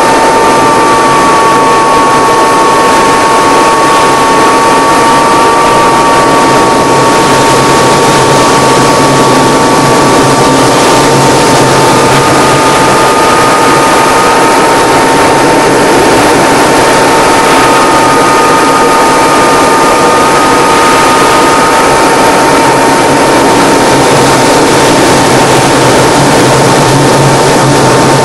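Single-engine propeller aerobatic plane's engine and propeller running loudly and steadily, heard from inside the cockpit, with a steady whine and a second, slightly higher whine that wavers a little in pitch.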